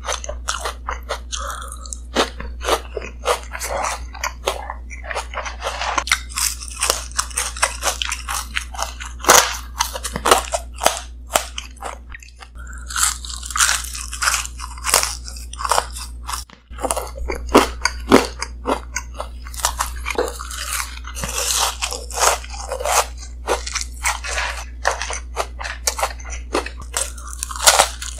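Close-miked crunching and chewing of crisp, crumb-coated fried fish and french fries: dense, crackly bites one after another over a steady low hum. The sound drops out briefly twice around the middle.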